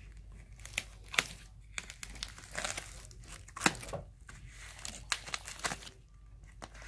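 Packing material in a cardboard box rustling and crinkling as it is handled, in irregular short crackles, the loudest a little past halfway.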